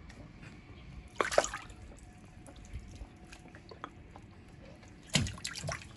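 Water splashing and dripping in a child's inflatable paddling pool: a splash about a second in and another, longer one near the end, with small drips between.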